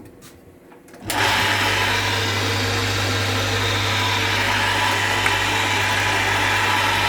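Electric motor of a homemade multi-spindle drilling machine switched on with a click and then running steadily from about a second in, with a strong steady hum under a wide whirr.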